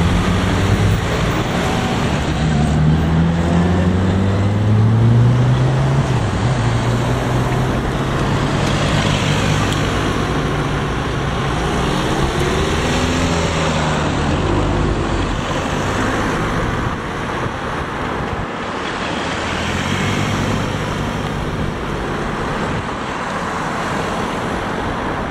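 Road traffic: a line of cars driving past close by one after another, engines rising in pitch as they pull away, over a steady hiss of tyres on the road.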